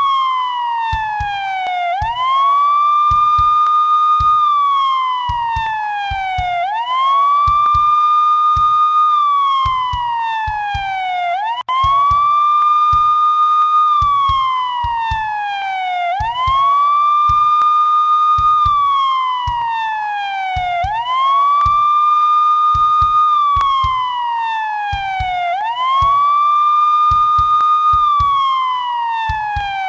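Police siren wailing in a slow repeating cycle: a quick rise to a held high note, then a long, even fall in pitch, starting over roughly every four to five seconds.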